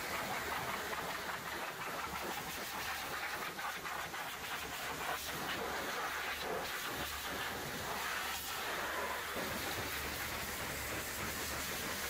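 High-pressure water jet from a pressure-washer lance hitting a concrete mixer truck's steel chassis and frame, a steady hiss of spray over a low hum.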